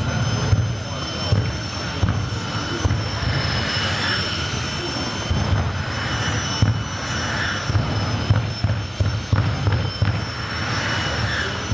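Jet dragsters' turbine engines running on the start line: a steady high whine over a deep rumble that rises and falls irregularly.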